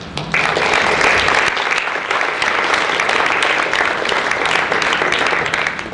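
Audience applauding: the clapping starts suddenly just after the beginning and dies away near the end.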